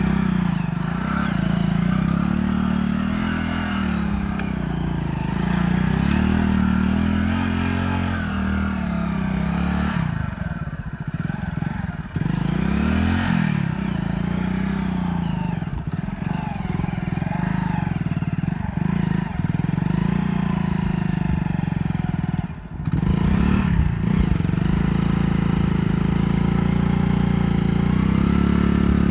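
Hero Splendor's single-cylinder four-stroke engine revving up and down again and again under heavy load, the motorcycle bogged in wet mud with its rear wheel spinning. The engine sound briefly drops about 22 seconds in.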